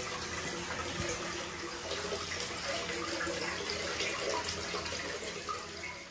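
Water running steadily into a hot-spring bath, a continuous splashing flow that fades out near the end.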